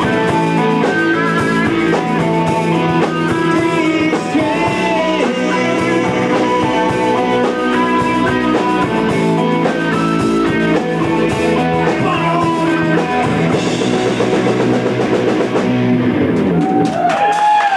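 Live rock band playing: electric guitars and drum kit, with some singing. About sixteen seconds in the full band drops away, leaving a few sliding notes.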